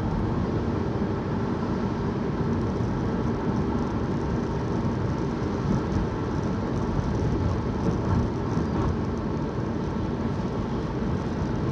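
Steady engine and road noise heard from inside a moving car's cabin, an even low rumble with no sudden events.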